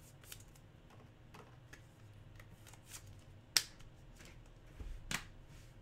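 Light taps and clicks of hands handling a trading-card box and its cards on a wooden desk, with two sharper clicks about three and a half and five seconds in.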